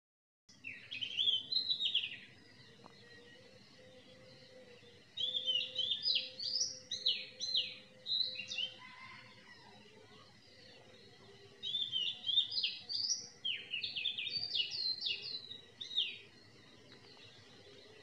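A songbird singing in three phrases of quick, rapidly rising and falling chirping notes, over a faint steady background.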